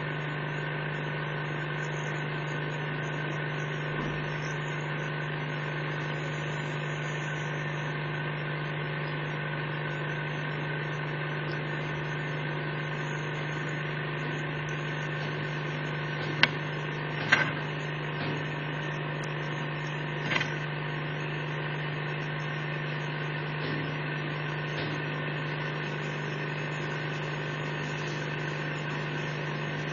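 A small motor running with a steady, unchanging hum, with a few sharp clicks a little past the middle.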